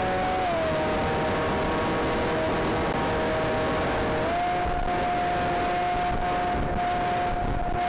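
Electric motor of a Blade Theory W flying wing whining in flight under a steady hiss, heard over the FPV video link. Its pitch steps down about half a second in and back up about four seconds in as the motor speed changes.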